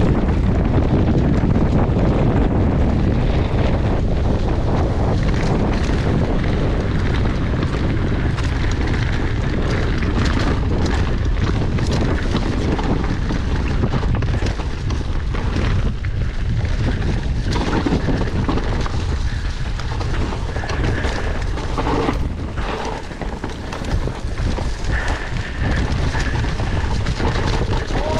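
Wind buffeting the camera microphone over the rumble of a mountain bike's tyres and suspension on a dirt trail at speed, with frequent short knocks and rattles as the bike hits bumps.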